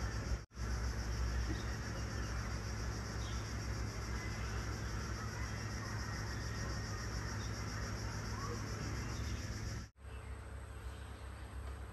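Steady, evenly pulsing high buzz of an insect chorus in the mangrove forest, over a constant low rumble. The sound drops out briefly about half a second in and again near the end, where the footage is cut.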